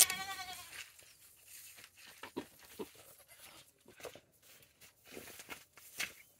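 A sharp knock, then a goat bleats once, a short wavering cry, followed by scattered soft rustles and clicks.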